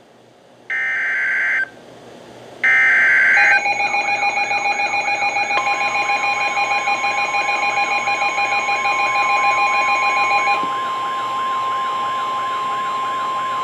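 Two short buzzy bursts of SAME digital header data from NOAA Weather Radio. Then weather alert radios sound their alarms: several steady tones under a fast warbling tone, which stop about two-thirds of the way through. Under them, a few seconds in, the single steady 1050 Hz warning alarm tone starts and holds to near the end.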